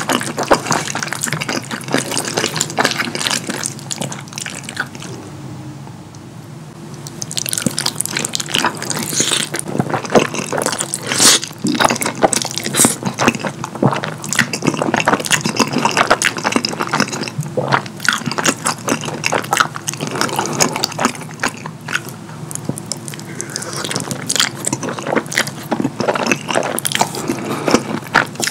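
Wet, smacking mouth sounds of a person chewing and slurping saucy rosé fettuccine, with sticky clicks throughout and a quieter stretch about five to seven seconds in.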